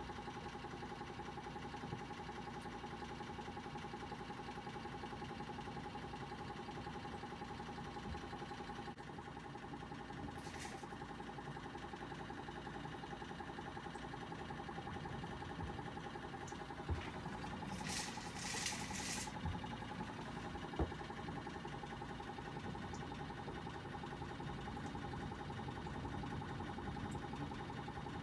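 Steady mechanical hum with a constant whine, with a brief hiss about ten seconds in and a longer hissy rustle around eighteen to nineteen seconds.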